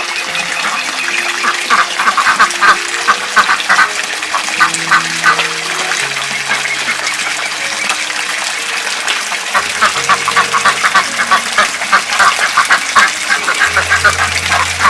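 Ducks quacking, many short quacks in quick runs. The calls thin out around the middle and come thick again in the second half.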